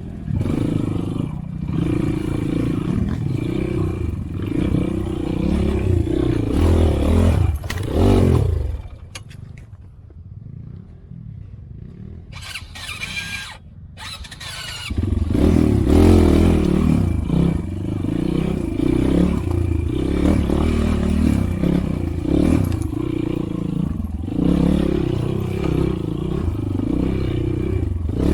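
Motorcycle engine running as it is ridden along a trail. About a third of the way in it drops away to a low level for several seconds, then picks up again and runs on steadily.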